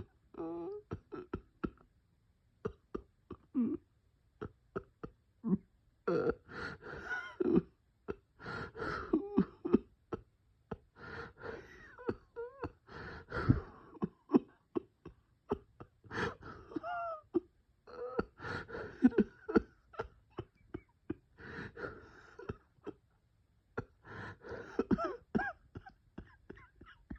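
A person coughing in repeated bouts every few seconds, with wheezing, gasping breaths between the coughs, during a bronchospasm.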